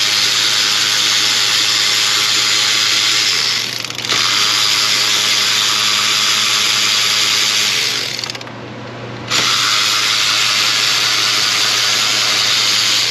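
Cordless electric ratchet spinning bolts out of an alternator bracket, running three times for about four seconds each. The first two runs are split by a brief dip, and there is a pause of about a second before the last run.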